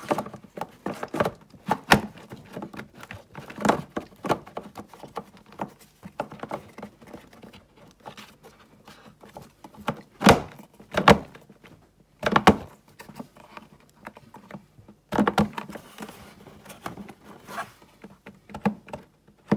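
Irregular knocks, clicks and light rattles of hand-handled car parts and tools as a part is pressed and fitted into place. There are a handful of sharper knocks, a few seconds apart, with quieter fiddling between them.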